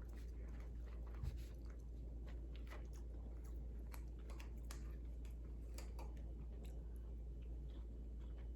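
Close-up chewing of crispy food: scattered small crunches and mouth clicks all the way through, over a low steady hum.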